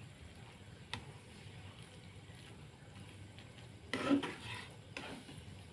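Spatula stirring and turning water spinach in a frying pan over a faint sizzle, with a sharp click about a second in and a louder scrape and clatter about four seconds in.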